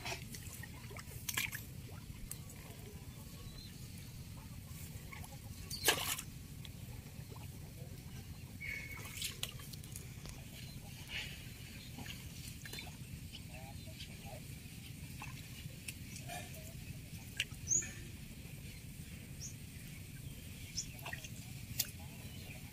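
Wooden paddle dipping into shallow canal water, with small splashes and drips as a small wooden boat is paddled along, and a sharp knock about six seconds in.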